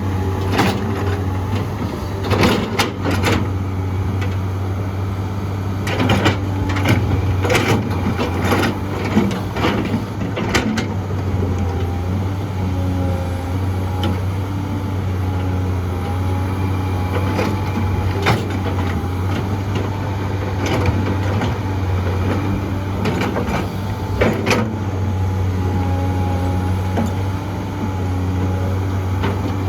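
Heavy excavator's diesel engine running steadily with a wavering hydraulic whine over it, broken by repeated sharp knocks and clatters of the bucket working dirt and rock into a dump truck.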